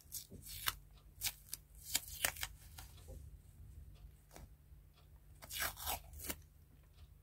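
3M Micropore paper surgical tape being peeled off its roll and handled by fingers: faint, irregular crackling rustles of paper tape.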